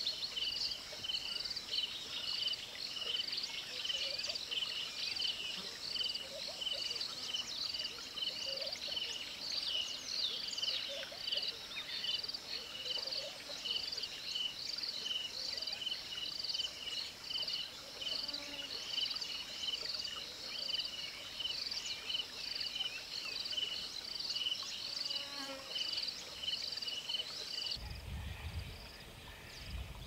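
Steady, even rhythm of high-pitched chirps, repeated about one and a half times a second, from an unseen calling animal in the wetland, with a brief bird call about ten seconds in. The chirping stops abruptly a couple of seconds before the end, leaving a low rumble.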